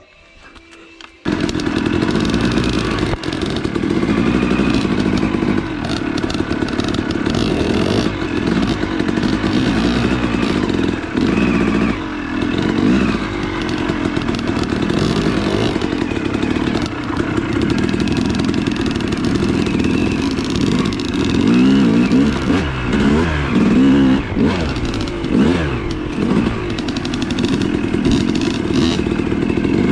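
Yamaha YZ250 two-stroke dirt bike engine revving up and down as it is ridden along a trail, the pitch rising and falling again and again. It starts suddenly about a second in.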